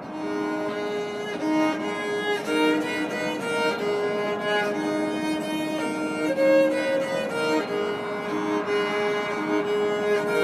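Background music on bowed strings: a violin plays a slow melody of held notes, coming in at the very start.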